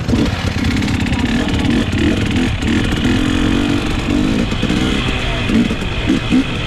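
Motorcycle engine running steadily, with a dense low rumble of road and wind noise.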